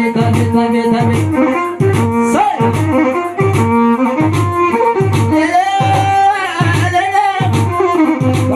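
Traditional Tigrinya wedding music from a band, loud: a steady low drum beat about twice a second under sustained melody tones, with a wavering, vibrato-laden melody line in the second half.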